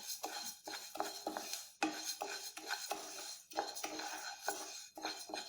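Split moong dal being dry-roasted in an empty kadai with no oil, stirred with a spatula: repeated scraping strokes against the pan with the dry lentils rattling, broken by short pauses about two and three and a half seconds in.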